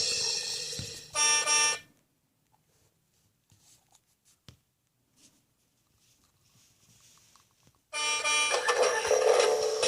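Two short electronic horn beeps in quick succession, a little over a second in, between a children's song fading out and starting again. Between the beeps and the song there are a few seconds of near silence with faint clicks.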